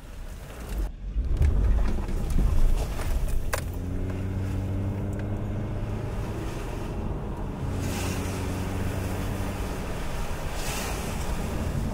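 A car being driven, heard from inside the cabin: a heavy low rumble of engine and road noise that settles into a steady engine hum, with a sharp click about three and a half seconds in.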